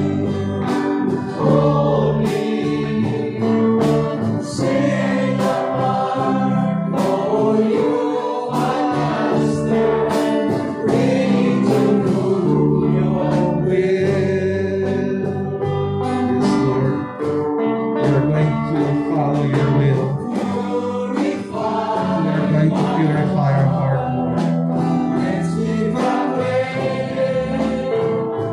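Live praise-and-worship song: a man singing into a microphone, backed by electric and acoustic guitars, keyboard and percussion.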